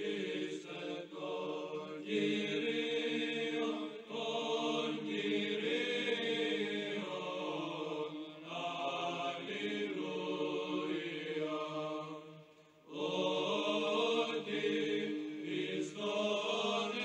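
Slow vocal chanting in long held notes, sung in phrases, with a brief pause about twelve and a half seconds in before it resumes.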